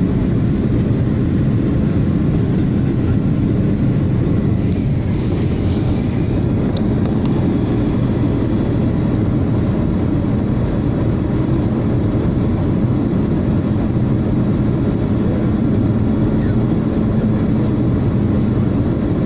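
Cabin noise of a Boeing 737 jet airliner in flight, heard inside the cabin beside the wing: a steady, deep rumble of the jet engine and rushing air with an even low hum under it.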